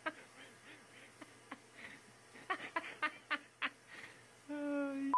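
Scattered light clicks and taps as a dog scrabbles on a tile floor with a jacket over its head, then a short, steady, honk-like tone lasting well under a second near the end.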